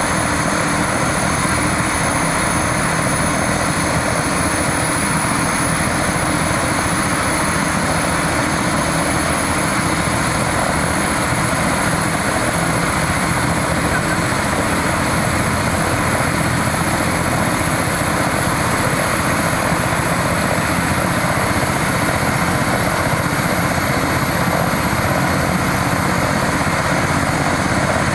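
Eurocopter EC-145 helicopter's twin turboshaft engines running on the ground with the main and tail rotors turning: a steady rotor and engine rush with a thin high turbine whine that creeps slightly upward in pitch.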